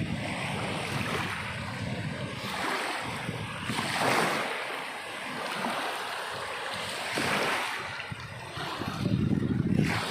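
Sea waves washing onto the shore, swelling and falling back every few seconds, with the strongest washes about four and seven seconds in. Low gusts of wind rumble on the microphone near the start and near the end.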